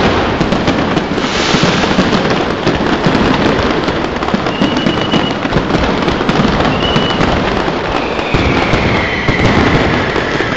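Aerial fireworks display: a dense, continuous barrage of bangs and crackling from many bursting shells. Two short high whistles come about halfway through, and a long falling whistle comes near the end.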